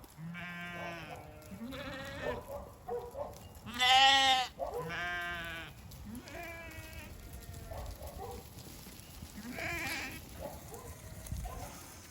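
Several ewes bleating one after another in different voices, some low and some high, the loudest call about four seconds in.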